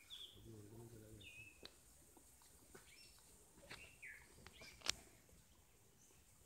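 Faint birdsong: several short chirps, each dropping in pitch, scattered through the few seconds. A few sharp clicks come in between, the loudest about five seconds in.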